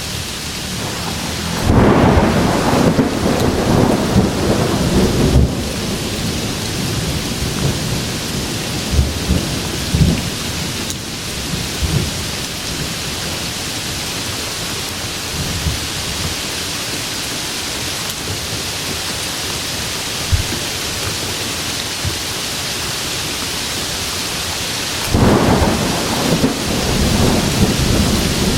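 Steady rain with two rolls of thunder, one starting about two seconds in and lasting a few seconds, and another starting near the end.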